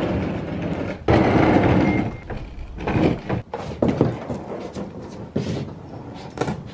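A Bonafide SS127 fishing kayak's plastic hull scraping and sliding as it is hauled off a rack and along concrete, with irregular knocks and bumps; the loudest scrape comes about a second in, with a short squeak near two seconds.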